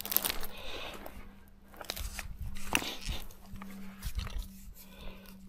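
Handling noise as a metal detecting pinpointer is taken out: gloves and clothing rustling, with scattered crunching clicks of soil, over a faint steady low hum.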